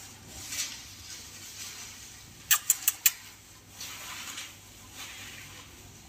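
Four quick, sharp clicks close together, about two and a half seconds in, amid a few soft, faint hissy sounds.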